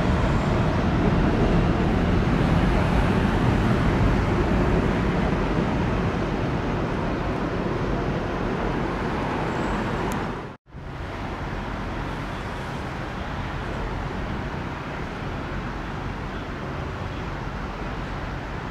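Washington Metro 7000-series train running away on an elevated track, its rumble fading steadily. About ten seconds in the sound cuts out for an instant and gives way to steadier, quieter outdoor traffic noise.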